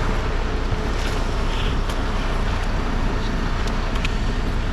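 Engine running steadily with a low rumble, with a few faint clicks over it.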